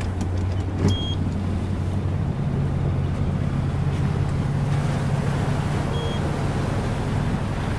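A small fishing boat's engine running steadily under way, with water and wind noise around it; its note rises a little about two seconds in. Two short high electronic beeps sound, about a second in and again about six seconds in.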